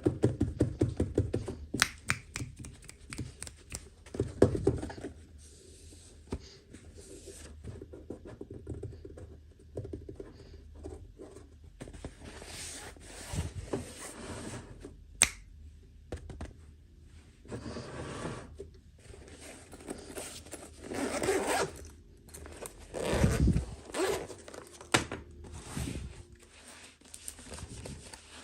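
Toy packaging being handled and opened: a long run of scrapes, clicks and tearing rips, with louder ripping passages near the end.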